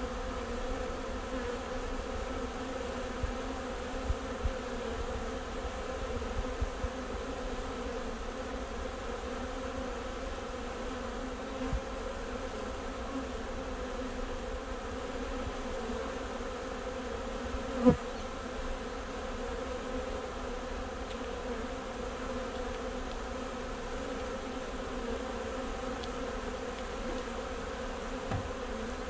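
Steady buzzing hum of a freshly collected honeybee swarm crowding a hive entrance and walking in, a low hum with a higher overtone. One brief, louder bump comes about two-thirds of the way through.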